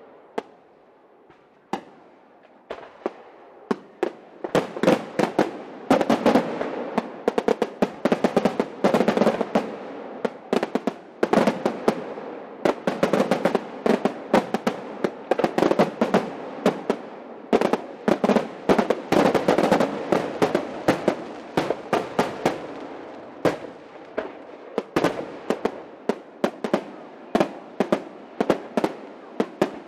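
Aerial fireworks bursting: after a short lull, scattered bangs build about four seconds in to a dense, rapid barrage of shell bursts with continuous crackling.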